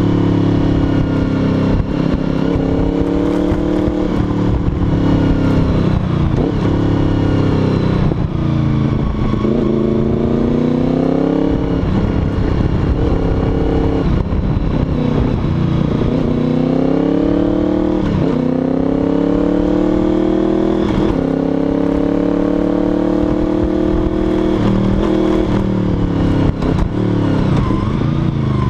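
Honda VFR800 FI's V4 engine running under way, heard from on board the motorcycle, its revs dropping and climbing again several times as the throttle is rolled off and opened.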